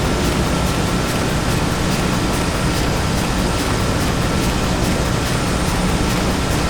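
Factory machinery ambience: a steady, dense mechanical din with a faint regular clatter about three times a second and a thin steady whine running through it.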